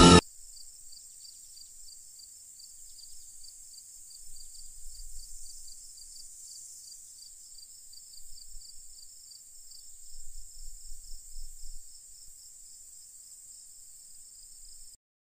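Crickets chirping in a steady rhythm, a few chirps a second, over a faint steady hiss, with soft low rumbles twice. The film's music cuts off just as it begins, and the crickets stop suddenly near the end.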